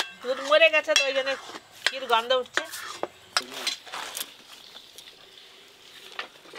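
Soaked rice grains being scooped and rubbed by hand on a cloth, making soft rustles and small clicks. An indistinct woman's voice is heard in the first few seconds.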